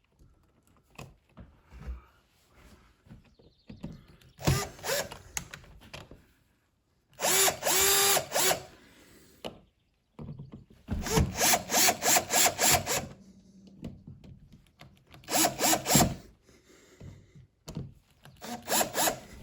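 Cordless drill/driver running in about five short bursts as it drives the switch's mounting screws into the wall box, its motor pitch rising and falling as the screws tighten.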